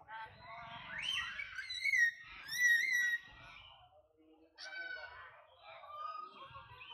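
High-pitched squealing calls of a young monkey, rising and falling in pitch, in two bouts with a short pause between them.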